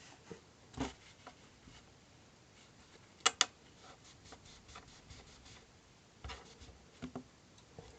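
Quiet room with a few brief clicks and small handling noises, the loudest a quick double click about three seconds in.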